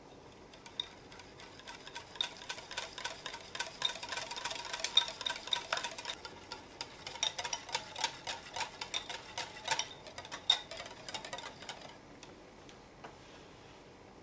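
Metal wire balloon whisk beating a creamy cheesecake filling in a glass bowl, its wires clicking rapidly and ringing against the glass. It starts about a second in and stops about two seconds before the end.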